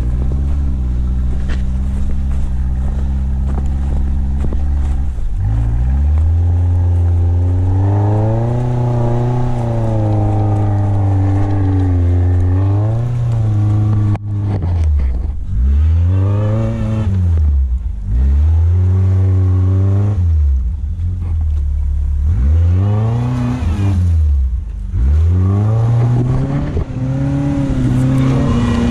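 Suzuki SJ410's 1.0-litre four-cylinder petrol engine running steadily, then revved up and down over and over: one long high rev, then quick rises and falls every second or two. The engine is working the 4x4 through deep snow.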